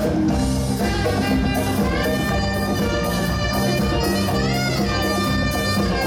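Live disco dance music from a band with orchestra: electric guitars, orchestral instruments and a steady beat, played loud through the venue's sound system.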